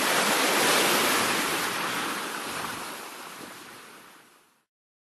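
Intro sound effect: a surf-like rush of noise that swells and then slowly fades, stopping about four and a half seconds in.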